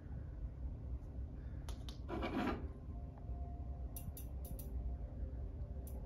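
Live feeder rat moving in wood-chip bedding: a short rustle about two seconds in, with a few light clicks before it and a quick run of clicks about four seconds in, over a steady low room hum.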